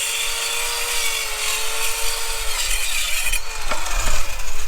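Power saw cutting through a wooden 2x2 with a steady motor whine. The cut ends about three and a half seconds in and the motor winds down.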